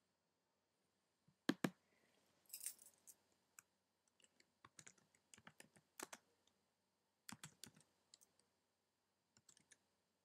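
Near silence broken by scattered sharp clicks at irregular intervals, the loudest pair about one and a half seconds in.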